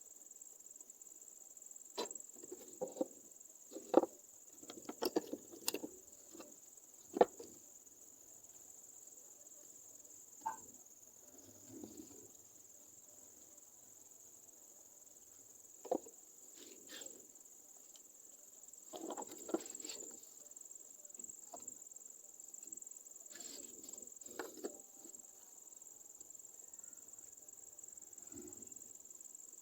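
A steady high-pitched insect chirr, typical of crickets, runs throughout, with scattered sharp clicks and short knocks, the loudest about four and seven seconds in.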